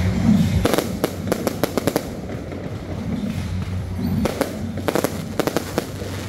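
Fireworks bursting overhead in rapid clusters of sharp crackling pops, one volley starting about half a second in and another around four seconds in.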